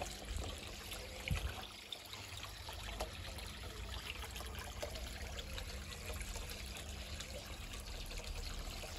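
Water pouring steadily from a spillway outlet into a koi pond, splashing and trickling into the surface. There is a single soft bump about a second in.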